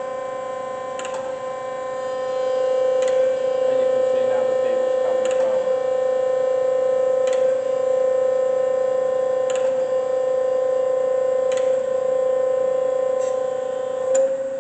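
DoAll D-6 hydraulic surface grinder running under power: a steady machine whine from its drive, growing louder about two seconds in. A short knock comes about every two seconds as the hydraulic table reaches the end of its stroke and reverses.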